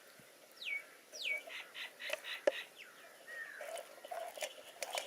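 Birds calling: two quick whistles sliding downward, then a run of short repeated chirps and a further curved note. Several sharp clicks or knocks come in between, the loudest about two and a half seconds in.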